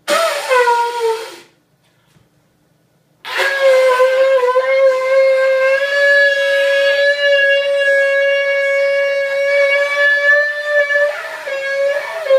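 Water buffalo horn blown like a trumpet: a short blast that slides down in pitch, a pause, then one long steady note held for about nine seconds, wavering slightly near the end.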